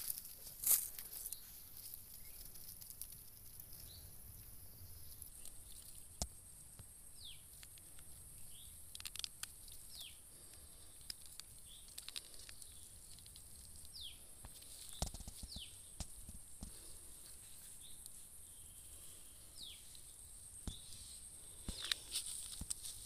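Quiet riverside ambience: a steady high insect drone and a bird giving brief falling chirps every couple of seconds, with occasional taps and rustles of hands working on dry grass, the sharpest tap about a second in.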